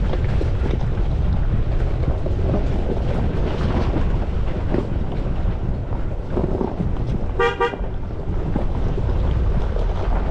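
Pickup truck driving slowly over a rocky gravel trail, with a steady low rumble of wind buffeting the microphone. About three-quarters of the way through, a vehicle horn gives a brief toot lasting under half a second.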